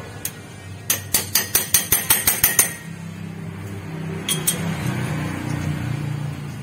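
Ratchet socket wrench clicking about a dozen times in quick, even succession as bolts under a Daihatsu Gran Max are worked during reassembly after a clutch-plate replacement, with two more clicks a little later. A low steady hum runs underneath in the second half.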